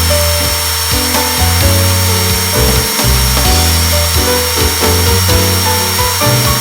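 Background music with a steady beat over the steady high whine of an electric motor running, as of a power drill or the vacuum cleaner it is paired with.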